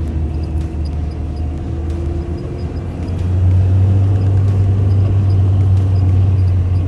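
Off-road vehicle's engine and drivetrain running steadily while driving, a low drone that grows louder about three seconds in.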